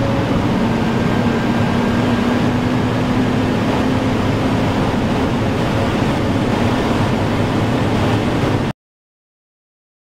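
Steady roar of wind and tyres heard inside a hypercar at close to 400 km/h, with a faint steady hum beneath it. It cuts off abruptly near the end.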